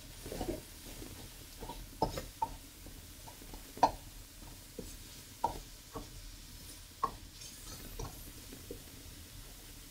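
Slotted turner scraping and knocking against a wok while stir-frying ground meat, with irregular sharp taps every second or so.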